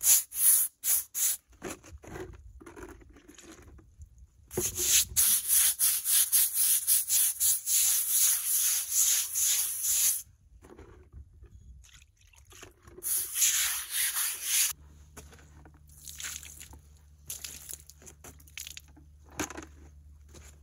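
Stiff-bristled hand brush scrubbing back and forth across the surface of a cast black concrete step slab in quick rasping strokes. The strokes come in runs, the longest about halfway through, and turn sparser and fainter in the last few seconds.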